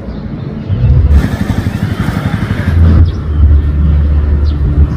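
Deep, rumbling bass notes of loud amplified band music from a neighbouring church. A louder broad rushing noise covers it from about a second in until nearly three seconds in.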